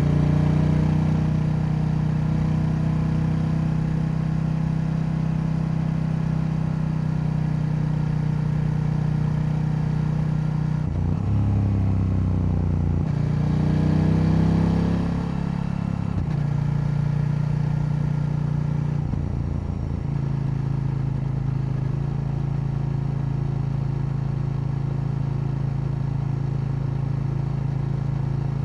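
KTM 890 Duke's parallel-twin engine running under way at fairly steady revs. The revs drop and rise a few times about a third of the way in, and change again about two-thirds through.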